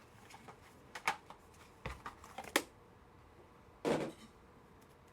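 Scattered light clicks and taps of trading cards and hard plastic card cases being handled, with one louder short whoosh about four seconds in.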